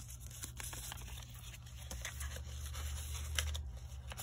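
Light paper handling: a small card slid into a paper envelope pocket in a journal, with scattered rustles and soft taps.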